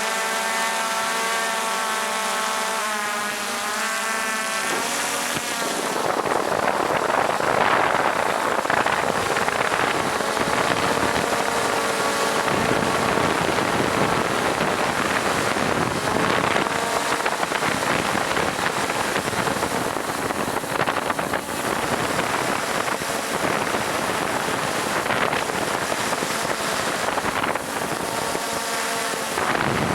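A boat's motor running with a steady whine. About five seconds in, a loud rush of wind and water noise covers it and carries on.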